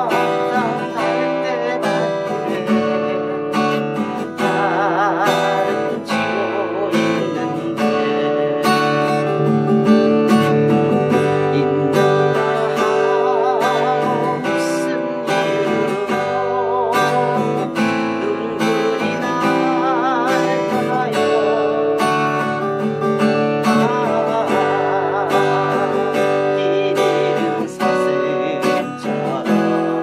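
Acoustic guitar strummed in a steady, continuous accompaniment pattern, with a wavering melody line with vibrato over the chords.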